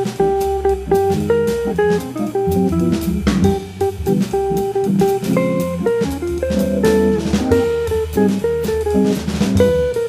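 Jazz organ trio recording: an electric jazz guitar plays a single-note melody line over a Hammond organ and drums, with a steady ride-cymbal beat and a walking bass line from the organ.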